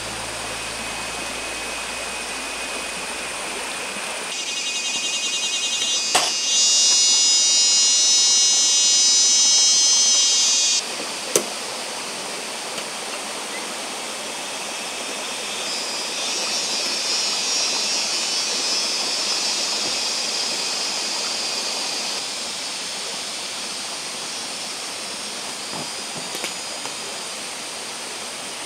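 Stream water flowing steadily over rocks. A loud, high, pulsing buzz joins from about four to eleven seconds in, and a softer high buzz a few seconds later, with a couple of sharp knocks.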